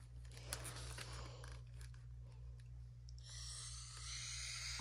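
Faint handling of a plastic dinosaur toy: a few light clicks and rustles over a low steady hum, with a hiss coming in about three seconds in.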